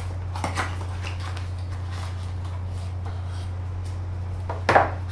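Packaging being handled while unboxing a drone: brief rustles about half a second in and a louder swish of the insert near the end, over a steady low hum.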